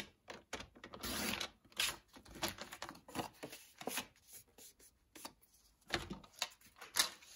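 Paper trimmer's sliding blade drawn along its track, slicing through a sheet of cardstock in one scraping stroke about a second in, with paper rustling and small plastic clicks as the cut card is lifted and handled.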